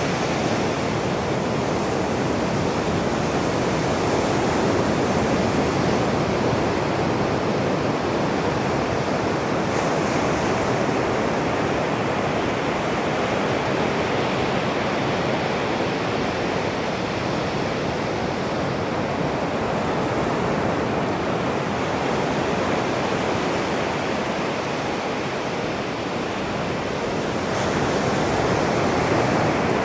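Ocean surf breaking and washing up a sandy beach: a steady rush of waves that swells a little near the end.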